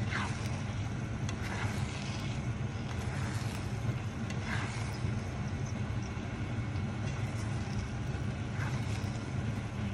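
Egg and eggplant sizzling in a frying pan under a steady low hum, with a spatula scraping and pushing through the eggs about four times.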